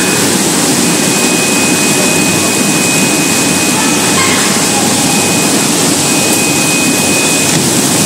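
Vegetable and fruit bubble washing machine running: air bubbling hard through the wash tank, a loud steady churning of water. A thin high steady tone runs over it and stops near the end.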